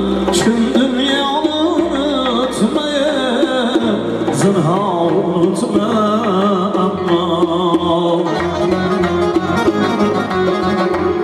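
Live Central Asian folk music: a long-necked lute and an electronic keyboard playing a wavering, ornamented melody over a steady accompaniment, with a few sharp percussive strikes in the first half.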